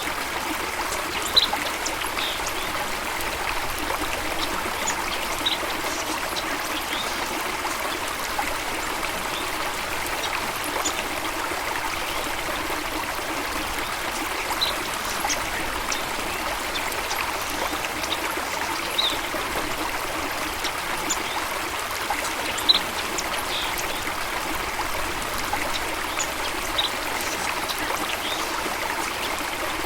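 Running water of a stream or small waterfall: a steady, even rush and trickle, with brief high-pitched plinks scattered through it every second or few.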